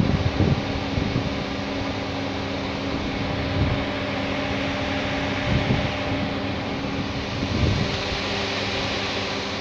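Steady mechanical hum with several held tones, broken a few times by short low thumps on the microphone.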